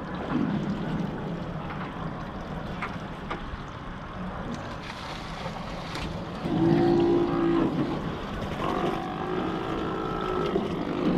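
Sea lions hauled out on a navigation buoy calling: two long, low calls, the first about six and a half seconds in and the second about two seconds later, over the steady running of the boat's outboard motors and wind on the microphone.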